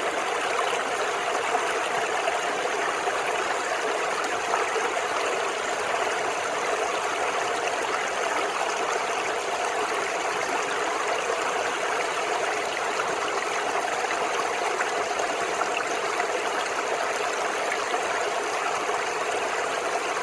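A small brook babbling and gurgling steadily as the water flows gently over stones.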